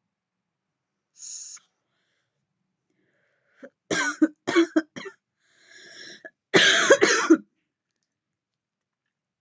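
A woman coughing hard while vaping. Three or four quick coughs come about four seconds in, then a breath, then a longer, louder round of coughing around seven seconds.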